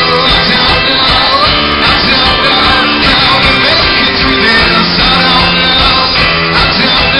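Live pop-rock band playing loudly, with singing over a steady beat.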